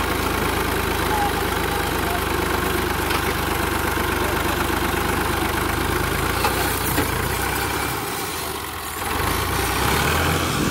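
Fiat 480 tractor's diesel engine running steadily under load as it pulls a heavy trolley of sand through loose soil. The engine note dips about eight seconds in, then swells again near the end.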